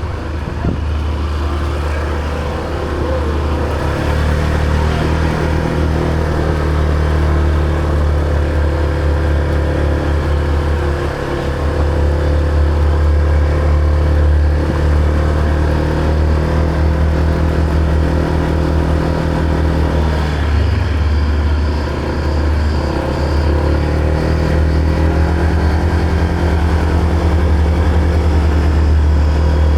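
Motor scooter engine running steadily while riding, easing off briefly about a third of the way in and again around two-thirds, then picking back up. Heavy low rumble from wind buffeting the microphone.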